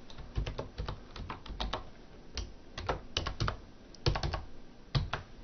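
Typing on a computer keyboard: irregular keystrokes in quick runs with short pauses, stopping just before the end.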